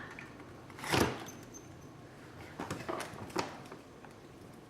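Freezer door of a household refrigerator being handled: a short rush of noise about a second in as the door seal releases or shuts, followed by a few light clicks and knocks.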